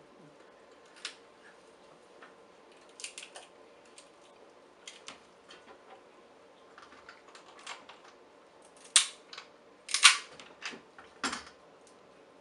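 Boiled shellfish shells being cracked and peeled apart by hand: scattered sharp cracks and snaps, with a louder cluster about nine to eleven seconds in.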